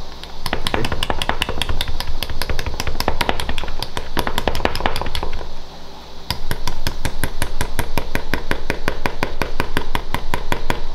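Wire whisk beating flour into a stiff dough in a mixing bowl, its wires clacking against the bowl in a fast even rhythm of about five strokes a second. The clacking stops briefly about five and a half seconds in, then starts again.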